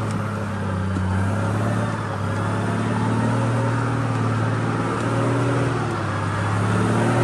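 A Troller 4x4's engine running steadily, its pitch drifting gently up and down as it pulls the vehicle up a trail climb.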